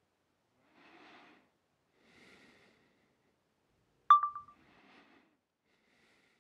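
A single short, high-pitched ding about four seconds in that fades within half a second, set among three faint, soft breath-like sounds.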